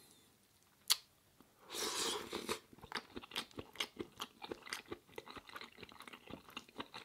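Close-miked mouth chewing a mouthful of plant-based chicken curry: a sharp click about a second in, a louder rush of sound around two seconds in, then rapid wet smacking clicks, several a second.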